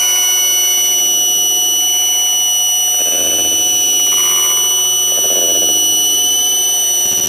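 Steady high-pitched electronic tones held unchanging over a rough, wavering lower drone that swells twice in the middle.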